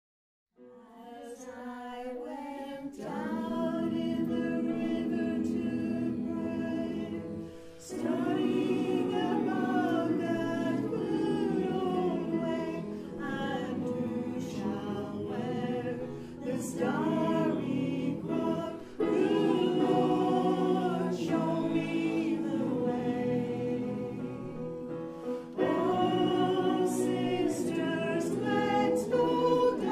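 A choir singing a slow song in long held phrases, starting a moment in after a brief silence.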